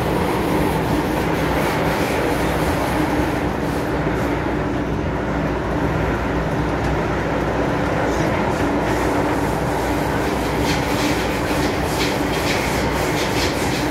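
MTR M-Train electric multiple unit running steadily, heard inside the passenger car: a continuous rumble with a steady low hum. A run of clicks and rattles comes in the last few seconds.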